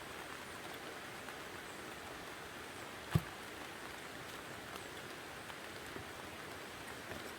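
Steady rain falling, with scattered drops ticking, and a single low thump about three seconds in.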